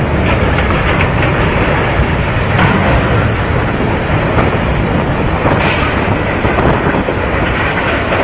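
Steady heavy rumbling and grinding as a ship's hull ploughs ashore through dockside structures, mixed with wind buffeting the microphone.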